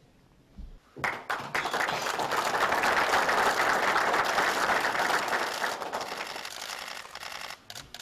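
Applause from a small crowd of officials, mixed with many rapid camera shutter clicks. It breaks out about a second in, swells, and fades away near the end.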